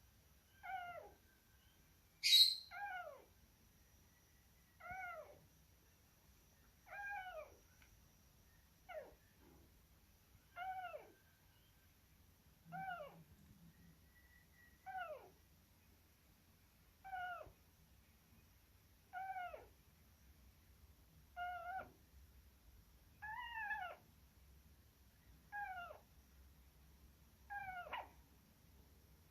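Hamster snoring in its sleep: a short squeaky note that falls in pitch with each breath, about one every two seconds. A sharp click a little over two seconds in is the loudest sound.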